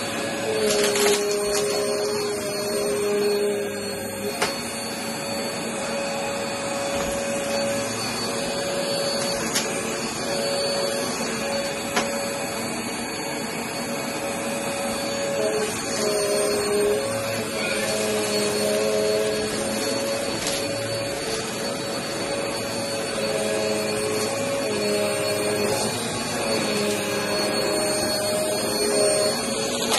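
Vacmaster bagless upright vacuum cleaner running on a thick rug. Its motor tone shifts as it is pushed back and forth, with scattered crunchy clicks of debris being sucked up.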